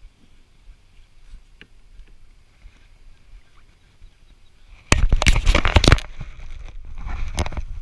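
Handling noise on a body-mounted camera: a few faint clicks, then about five seconds in a sudden loud burst of rubbing and rustling that lasts about a second, followed by softer rustling and a few sharp knocks as the camera swings round.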